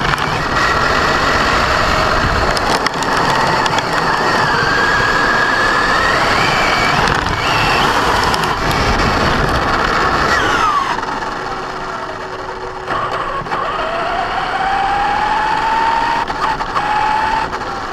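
Electric 1/10 4x4 RC monster truck (Basher Nitro Circus) driving, its motor whine rising and falling with the throttle over a harsh grinding noise from the drivetrain. The grind comes only under acceleration, not in reverse or with the wheels off the ground, and has survived a gear-mesh adjustment. Its cause is unknown to the owner. The whine falls away about eleven seconds in, and the truck runs quieter with a lower whine climbing again near the end.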